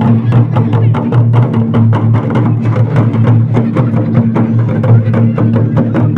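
Live folk drumming on several hand-played barrel drums of the mandar type, a fast, dense, unbroken rhythm of strikes over a steady low drone.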